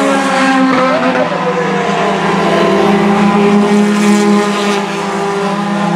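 Several four-cylinder stock car engines racing in a pack at high revs, their pitches rising and dipping as the drivers lift and get back on the throttle. The sound gets louder through the middle as the cars pass close by.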